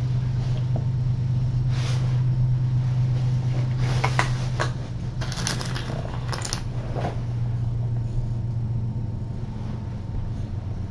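A steady low hum throughout, with a few brief crackling, rustling noises about two seconds in and again between four and seven seconds in.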